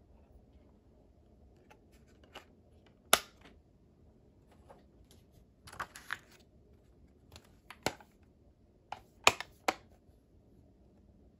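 Sharp clicks and snaps of a 4K Blu-ray steelbook case, its metal cover and plastic disc tray, being handled and shut. There is one loud click about three seconds in, a small cluster of clicks around six seconds, and two loud snaps near the end, with quiet between.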